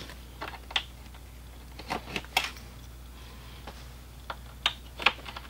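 Scattered light clicks and taps as the retaining pins are pushed into a Tusk pannier's mounts on its rack plate. The clicks come in small clusters, one about two seconds in and another near the end.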